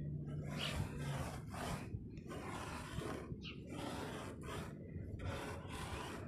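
Footsteps crunching on snow and ice, a rough crunch about once a second over a low rumble.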